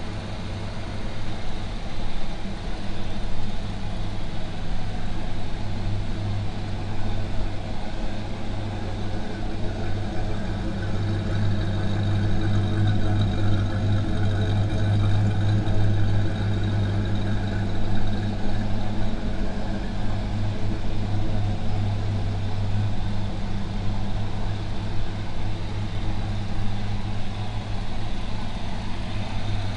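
1995 Ford Mustang SVT Cobra's 5.0-litre V8 idling steadily, a deep even drone that grows a little louder around the middle.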